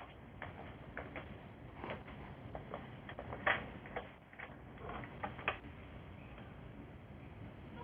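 Knocking in a residential building, going on without a break: irregular sharp knocks, a few a second, the loudest about three and a half and five and a half seconds in.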